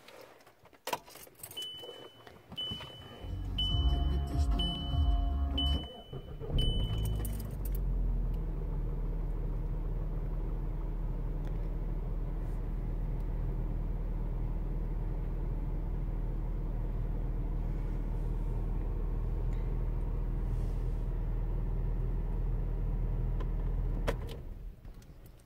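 Volkswagen Golf Mk5 being started: a key rattles and clicks, and a high warning chime beeps about once a second while the engine is cranked and catches. The engine then idles steadily, heard from inside the car, and cuts off near the end.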